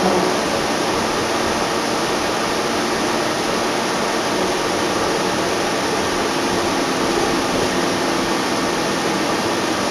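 Steady ride noise inside a NABI CNG transit bus cruising at an even speed. The Cummins L Gas engine's steady drone sits under a constant rush of road and wind noise.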